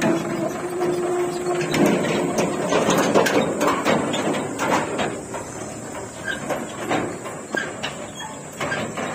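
Tractor engine running steadily, then from about two seconds in its steel trolley rattles and clanks over the rough dirt track, the knocking getting quieter as the tractor pulls away.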